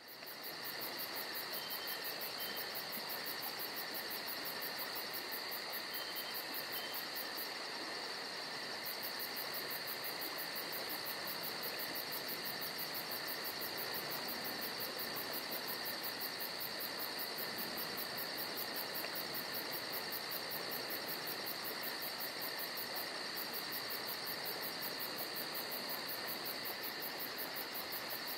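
Steady chorus of insects, such as crickets or katydids, in summer woods: shrill sustained tones with a fast, even pulsing buzz high above them. The pulsing drops out briefly about eight seconds in.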